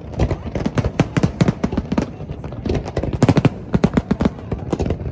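Fireworks going off in quick, irregular succession: a dense run of sharp bangs and crackles, several a second.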